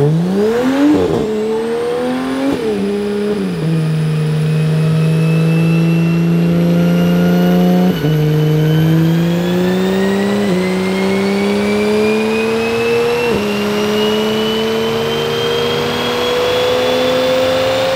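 BMW on a mobile chassis dyno doing a full-throttle pull: the engine revs up through the gears, its pitch falling back at each upshift several times. A thin whine from the tyre and dyno roller rises steadily with wheel speed throughout.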